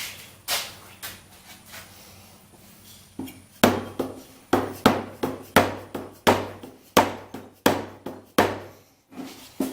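Rubber mallet tapping on a Briggs & Stratton L-head engine's cover to knock it loose: a couple of single taps, then from about three and a half seconds in a steady run of about a dozen blows, roughly two a second.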